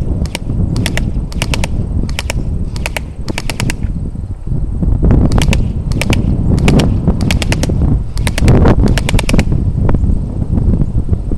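Cybergun Thompson M1A1 airsoft gun firing in short rapid bursts of two to four shots, each shot a sharp click, stopping about ten seconds in.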